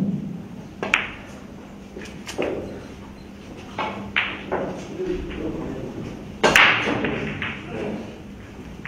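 Billiard balls struck and clacking on a Chinese eight-ball table: a sharp click about a second in, then a few more ball clicks and knocks, and the loudest knock about six and a half seconds in.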